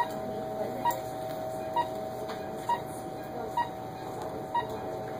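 Short electronic beeps from medical equipment, evenly spaced at a little under one a second, over a steady high tone.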